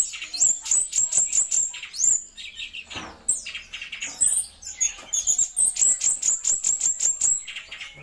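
Caged leafbird (cucak cungkok) singing a fast rolling song: quick runs of sharp, high notes in rapid succession, broken by short pauses. There is one run about a second in and a longer one from about five to seven seconds.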